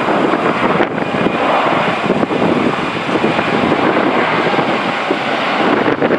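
Jet engine noise of a Boeing 737-800 with CFM56-7B engines on final approach, a steady rushing roar passing low overhead.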